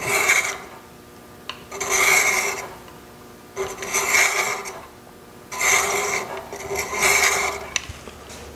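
Inside thread chaser cutting a screw thread into spinning dogwood on a wood lathe running very slowly: a scraping rasp in five short strokes of about half a second each, roughly every one and a half seconds, as the chaser is pushed forward across the wood.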